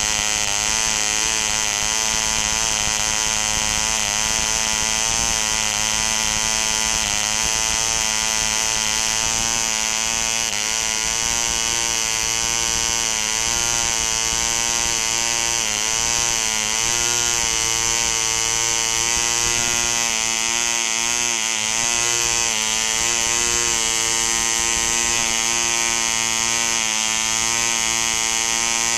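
A 1960 M.E. Heron 1cc two-stroke model diesel engine running steadily under load, swinging an 8x6 Keilkraft propeller. Its note dips and recovers a few times, most clearly in the second half, while the needle valve and compression lever are adjusted.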